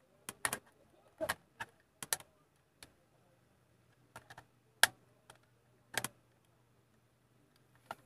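Scattered clicks and light knocks of a plastic network cable tester being handled and turned over close to the microphone, irregular, loudest about five and six seconds in, over a faint low hum.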